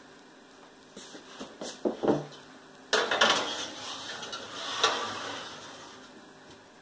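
Metal baking pan being slid into an oven's broiler drawer and set on its wire rack: knocks and a clatter of metal on metal, the loudest about three seconds in, with another knock near five seconds.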